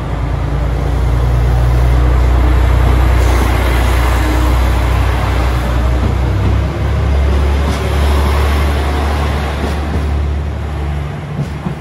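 Diesel engines of a JR Shikoku 2000-series limited-express railcar running as the train pulls out past the platform at close range: a loud, deep, steady drone that builds over the first few seconds and falls away near the end.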